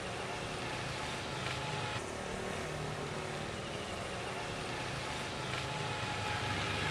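Steady road noise: a motor vehicle's engine hum under an even rushing noise, growing a little louder toward the end.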